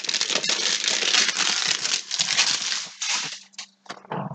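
Packaging of a trading-card hanger box being torn open and crinkled by hand: a dense crackling rustle for about three seconds, then a few light taps and clicks.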